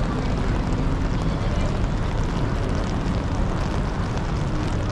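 Steady rain falling and splashing on wet paving, with wind rumbling on the microphone.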